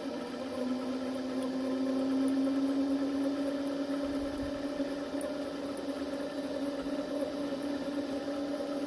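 Small bench metal lathe running, its motor whine rising to a steady pitch within the first second, while a twist drill in the tailstock chuck bores a hole into the end of a steel firing pin held in the spinning chuck.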